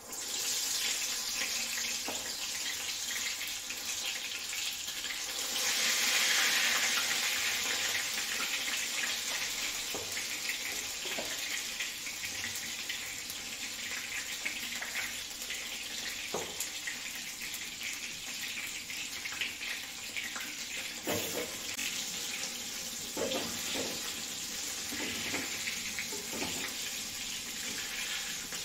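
Besan-coated brinjal slices sizzling as they fry in hot mustard oil in a kadhai. The sizzle swells louder about six seconds in, and a few knocks of a spatula against the pan come in the second half.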